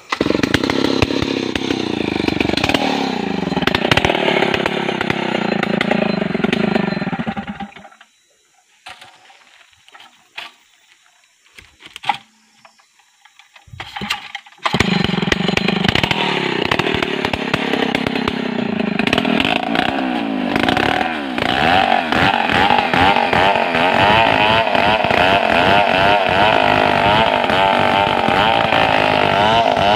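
Chainsaw running and revving, then cut off about eight seconds in. After several quiet seconds with a few knocks it starts up again. From about a third of the way through the second half it runs steadily under load, bucking into a large tree trunk.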